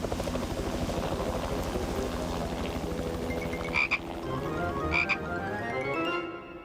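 Cartoon frog croaks, two short ones about a second apart, over a fast pulsing sound and a music cue whose notes climb step by step near the end.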